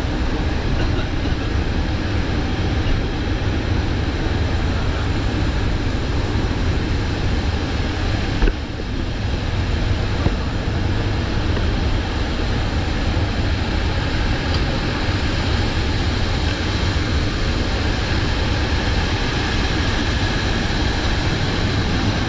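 Steady, loud cabin drone of a C-130J Super Hercules in flight, its four turboprop engines and propellers heard from inside the cargo hold. A brief knock about eight and a half seconds in.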